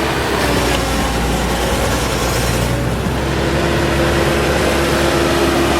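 Bobcat T190 turbo skid steer's diesel engine running steadily; a steady higher tone joins about halfway through.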